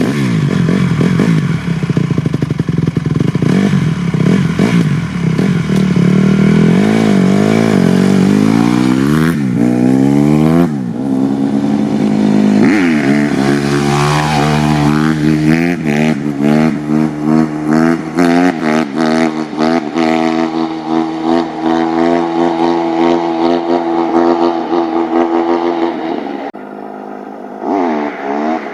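Honda CRF150R single-cylinder four-stroke dirt bike engine revving hard under acceleration, its pitch climbing and dropping back several times as it is run through the gears, then held at steadier revs with throttle pulses and a brief easing off near the end.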